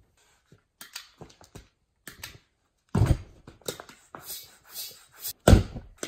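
Light clicks and knocks, then two loud, deep whumps, one about three seconds in and a louder one near the end: lighter fluid sprayed into a flat tubeless lawn-tractor tire catching fire inside it, lit to blow the tire's bead out onto the rim.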